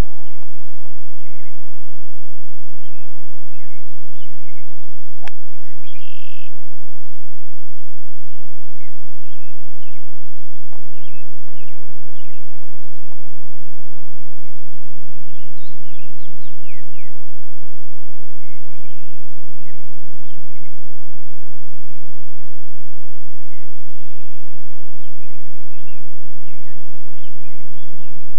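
Birds chirping in many short calls over a loud steady low hum, with one sharp click about five seconds in.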